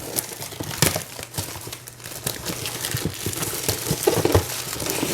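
Plastic wrapping crinkling and tearing as a plastic model kit box is cut open, with irregular crackles and a few sharp clicks.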